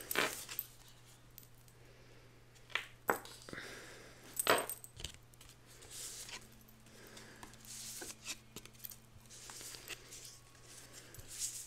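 Round oracle cards being drawn from the deck and laid down on a table: a few separate soft taps and slides of card, with quiet stretches between.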